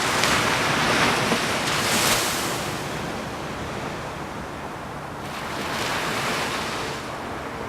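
Ocean surf: waves breaking and washing in a steady rush, loudest in the first couple of seconds and swelling again about five seconds in.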